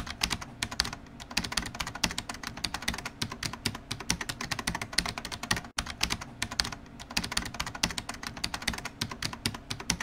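Computer keyboard typing sound effect: a rapid, continuous clatter of key clicks, with one brief break a little past halfway.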